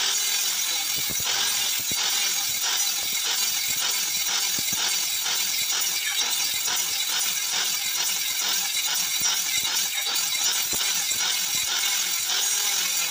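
Handheld electric circular saw running and cutting into a wooden board, making repeated cuts side by side to clear out a notch and throwing off wood chips. It starts at once and stops suddenly just before the end, with fine clicking through the steady whine.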